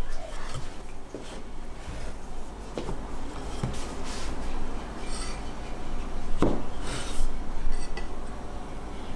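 Scattered light knocks and taps of a wooden rolling pin and a steel cleaver on a wooden chopping board as layered dough is rolled out and its edges trimmed, with the sharpest knock about six and a half seconds in.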